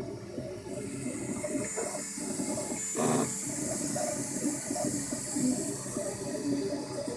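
Ultimaker 2 3D printer running a print: its stepper motors make shifting pitched tones as the print head moves, under a high hiss. About three seconds in there is a short, louder burst of motor noise.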